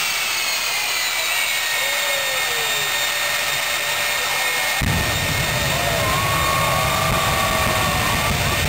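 Jet engines of a jet-powered semi truck running, a loud steady roar with a high turbine whine that falls slowly. About halfway through, a deep low rumble comes in suddenly beneath it.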